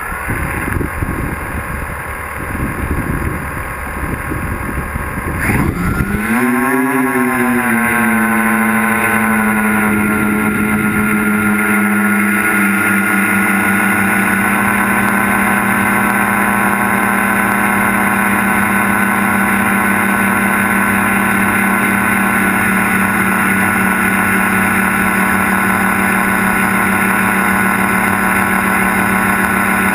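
The three brushless motors and propellers of a Multiwii tricopter drone spin up about six seconds in, then settle into a steady pitched drone in flight. Before the spin-up, rough wind rumble buffets the microphone.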